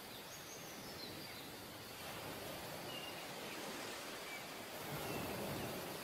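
Faint outdoor ambience: a steady rushing noise that swells slightly near the end, with a few short, high bird chirps scattered through it.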